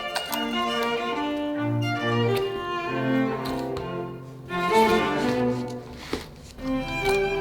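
Background music played on bowed strings, violin and cello, in held notes, with a few sharp clicks or knocks mixed in, the loudest about two thirds of the way through.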